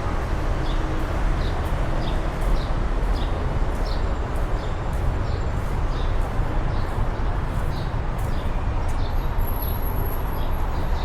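Outdoor ambience: a steady low rumble of traffic, with a bird chirping in short high notes about twice a second.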